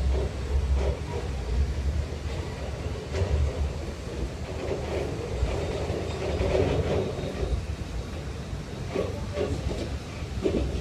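Passenger train running along the track, heard from inside the carriage: a steady low rumble with the wheels clicking over rail joints, several clicks close together near the end.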